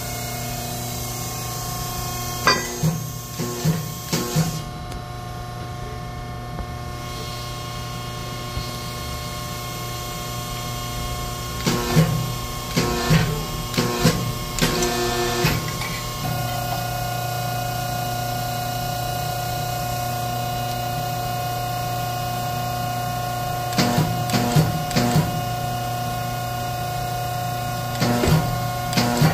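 Pacific press brake running with a steady hum, broken by bursts of clanks and clicks as a flat steel mounting bracket is set in the die and bent, four times.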